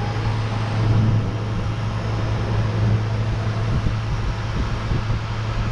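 Refrigeration condensing unit with a newly replaced compressor running steadily under load while being charged with refrigerant: a constant low hum with fan-air noise over it.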